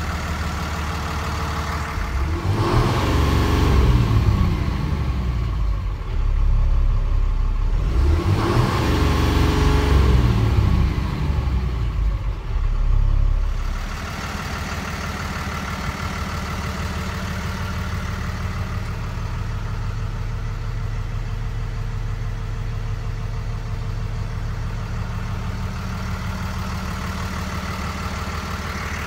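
The truck's 6.7-litre diesel engine idling. It is revved up and back down twice in the first half, then settles to a steady idle.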